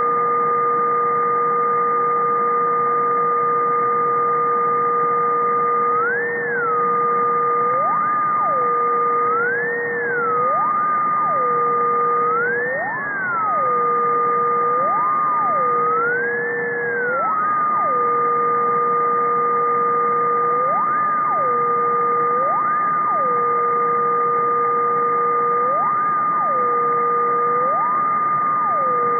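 Ultrasonic electronic noise shifted down into hearing: two steady whistling tones, one higher and one lower, that every couple of seconds glide up in pitch and straight back down in short humps, over a steady hiss. The recordist suspects a switched-mode power supply.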